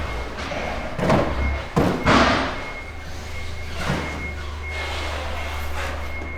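Warehouse loading dock activity: a few heavy thuds and bangs, the loudest about a second in and just after two seconds, with a lighter one near four seconds. Under them is a steady low engine hum and a faint, broken high beeping like a vehicle's reversing alarm.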